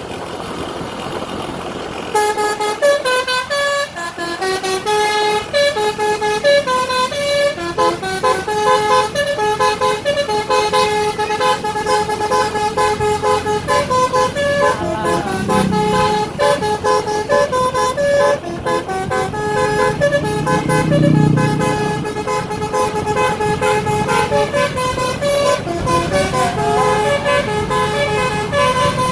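Bus telolet horn, an Indonesian multi-tone musical air horn of the Basuri type, playing a long run of melodic notes that starts about two seconds in and keeps going.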